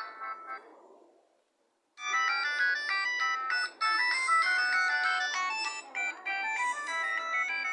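ZTE C332 MIDI ringtones played on a Multilaser P9091 phone. One polyphonic tune fades out in the first second and a half, there is a brief pause, and a new ringtone tune starts about two seconds in and keeps playing.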